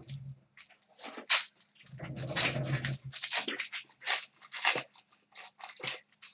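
Trading-card packaging and cards being handled: a series of sharp crackles and clicks, with a denser spell of crinkling about two seconds in, typical of a foil pack wrapper being torn open.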